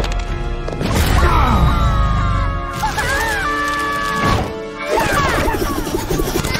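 Animated action-film soundtrack: fast score music under cartoon fight effects, with crashes and whacks, and high squeaky cartoon voices gliding up and down in the middle.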